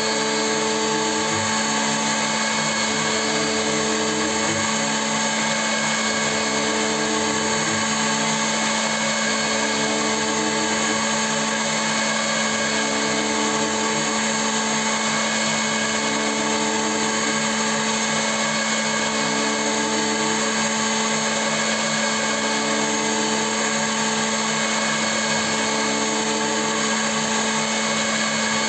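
CNC milling machine running steadily with a continuous motor whine, with short repeating tones that step in pitch every two to three seconds.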